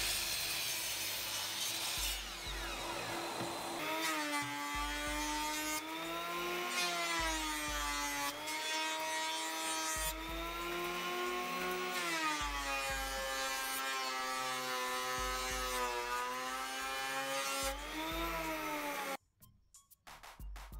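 Woodworking power tools cutting and planing pine: a sliding miter saw running through a board, then a planer machine taking a board. The motor whine sags in pitch as the cutter bites into the wood and recovers, over and over, and stops suddenly near the end.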